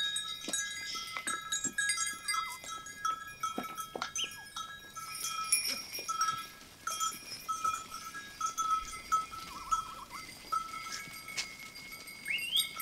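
Bells on a flock of sheep jingling irregularly as the sheep move and crowd together, with light clicks among them.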